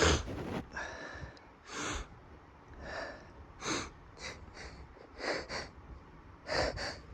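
A man sniffling through his nose in a string of short sharp sniffs, some in quick pairs, with a louder snort at the start: the sniffling of a sneeze building up.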